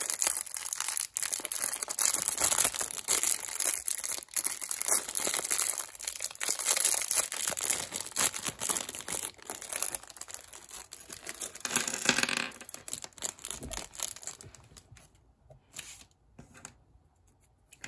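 Thin clear plastic bag holding Lego minifigure parts crinkling and crackling as fingers work and pull it open. The crinkling stops about two-thirds of the way through, leaving it nearly quiet.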